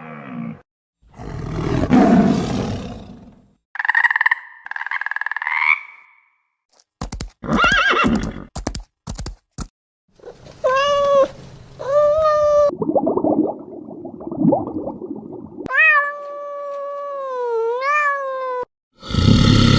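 A series of different animal calls one after another, with short gaps: a long noisy call, two short pitched calls, a quick run of sharp clicks, two more pitched calls, a noisy stretch, then one long call that wavers near its end. A loud new call begins near the end.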